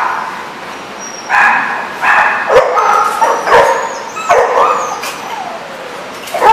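Dogs barking and yipping in play: a quick string of about seven short barks between one and five seconds in, then one more at the end.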